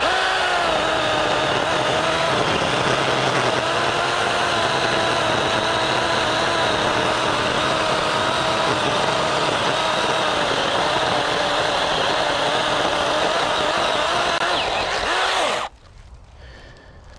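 Small 6-inch mini chainsaw running flat out and cutting through a leaning tree trunk, its pitch wavering a little under load. It starts abruptly and stops suddenly near the end. The cut meets resistance, which feels like the bar pinching in the kerf.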